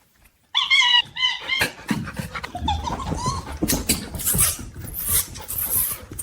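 A short run of high-pitched animal squeals, then scuffling and thumping noises.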